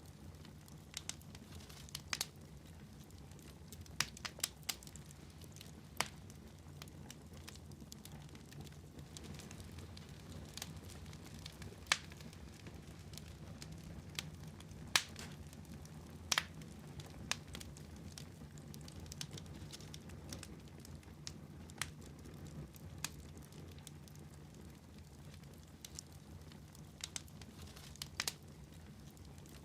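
Wood fire crackling in a fireplace: irregular sharp pops and snaps over a low steady rumble, with a few louder pops in the middle.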